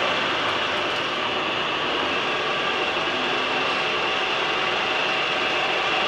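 Keyway shaper running, a steady mechanical noise with a thin high tone held through it.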